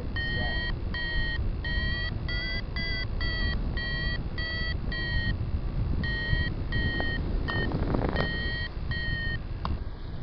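Paragliding variometer beeping about three short beeps a second, the repeating climb tone that signals rising air, with a short pause midway. Wind rumbles on the microphone underneath.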